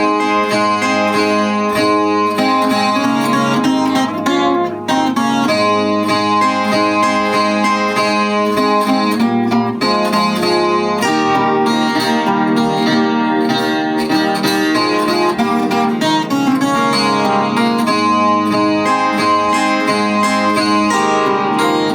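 Chilean guitarrón, the 25-string plucked instrument, playing an instrumental melody, with many strings ringing on together.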